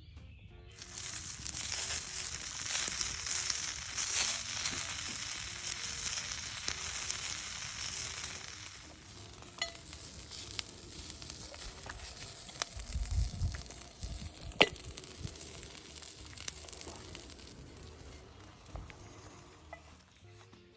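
Food sizzling in a hot pan, a loud hiss for about the first eight seconds, then quieter with scattered clicks, a low thump and one sharp click about two-thirds of the way through.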